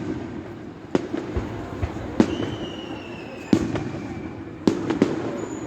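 Aerial fireworks bursting: four sharp bangs a little over a second apart, with a thin whistle slowly falling in pitch after the second one.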